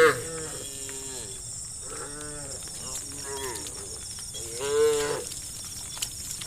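Cattle in a herd mooing: several drawn-out moos from different cows, the loudest about four and a half seconds in, over a steady high-pitched buzz.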